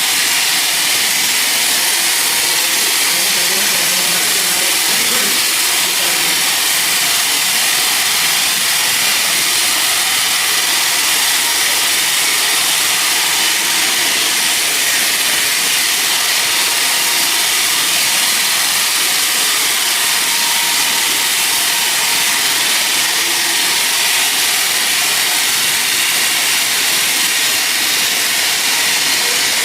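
Sawmill saw running steadily through a teak log, a loud, even high-pitched hiss that does not let up.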